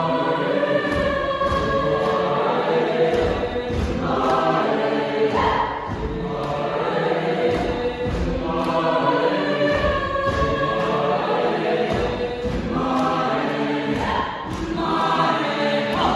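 Large mixed choir singing in several parts, full and sustained, with a steady beat of short knocks underneath.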